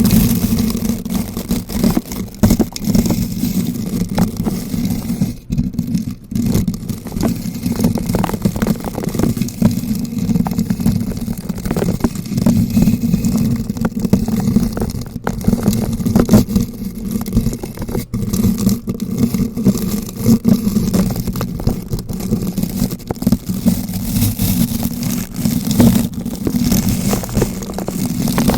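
Bristle brush rotated around a bare microphone, making continuous dense scratching and crackling with a strong low rumble from the rubbing on the mic.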